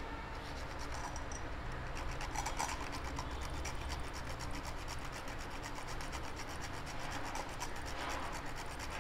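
Whole nutmeg rasped against a small stainless-steel hand grater in quick, repeated strokes.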